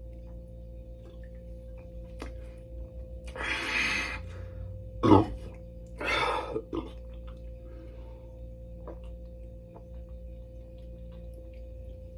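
A person breathing out hard while chugging cold carbonated water: two long rushing breaths about three and six seconds in, with a short, sharp throat sound between them about five seconds in. A faint steady hum runs underneath.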